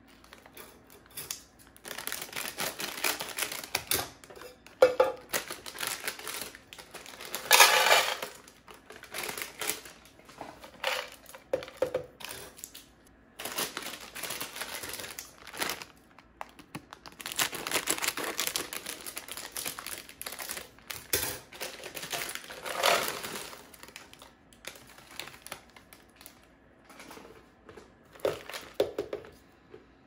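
A plastic bag of dried banana chips crinkling in spells as it is handled and snipped open with scissors, and the chips rattling as they are tipped into a plastic canister. The loudest crinkle comes about eight seconds in.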